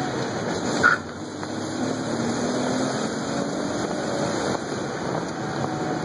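1995 Jeep Wrangler driving in gear, heard from inside the cabin: engine note rising as it accelerates, over steady road and wind noise. A short sharp sound a little under a second in is the loudest moment.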